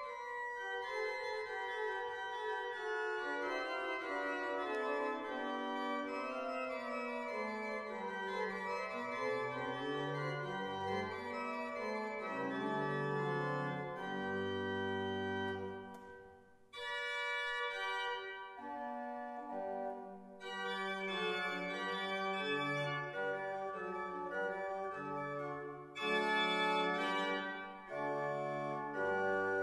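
Van Vulpen pipe organ playing many-voiced music over a moving bass line; the playing breaks off for a moment about halfway through, then resumes with full chords.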